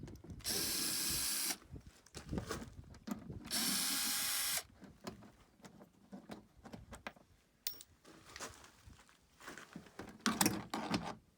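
Power drill running in two steady bursts of about a second each, backing the screws out of an old interior door handle; afterwards only light clicks and knocks of handling.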